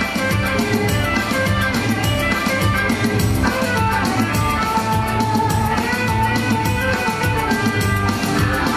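Instrumental break of a karaoke backing track for a Hindi film duet, with a steady beat and a held melody line.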